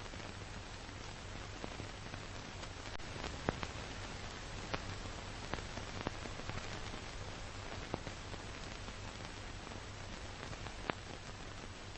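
Steady hiss with a low hum and scattered clicks and pops: the surface noise of an old film transfer, with no other sound picked out.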